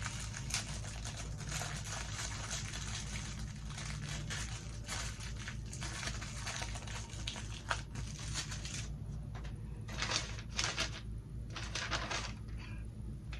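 Hands handling the ring light and its plastic parts: irregular rustling, crinkling and clicking, dense for the first nine seconds or so, then a few separate bursts. A steady low hum runs underneath.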